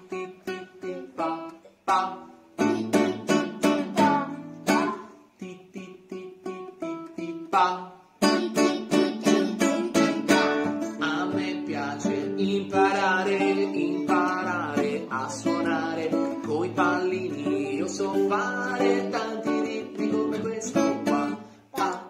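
Nylon-string classical guitar strummed in short chords with brief gaps between them. From about eight seconds in, the strumming runs on without breaks and a man's singing voice carries a melody over it: a children's song sung to guitar accompaniment.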